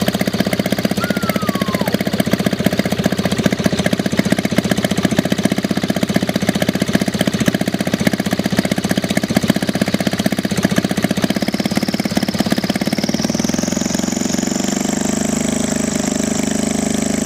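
Homemade ultralight aircraft's engine running with a steady rapid beat, then revving up about two-thirds of the way through and holding at the higher speed. It turns a propeller too large for it, which the builder says the engine cannot spin properly, so thrust is low.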